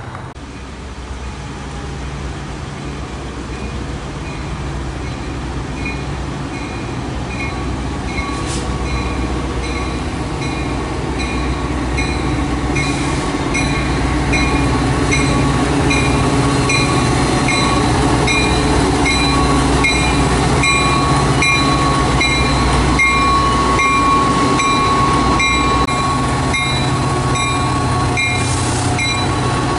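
Metra commuter train's diesel locomotives approaching and passing close: a steady engine drone with wheel and rail noise that grows louder over the first fifteen seconds or so, then holds steady. A bell rings about twice a second from about six seconds in.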